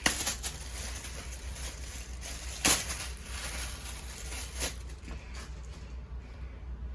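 Handling noises: scattered clicks and rustles over a steady low hum, with one sharp knock about two and a half seconds in and a lighter one near five seconds.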